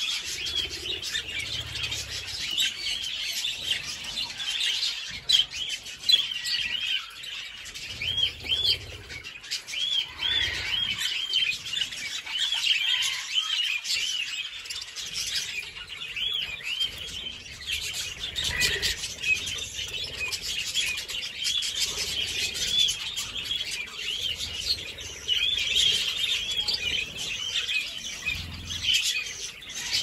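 A flock of budgerigars chattering: a continuous stream of short chirps and warbles that rise and fall in pitch, many birds calling over one another.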